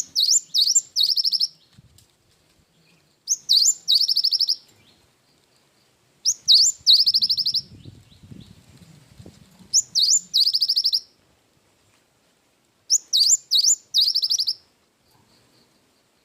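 Cinereous tit (gelatik batu) singing the 'wingko' song type. There are five high, loud song phrases about every three seconds, each a few sweeping notes followed by a quick trill.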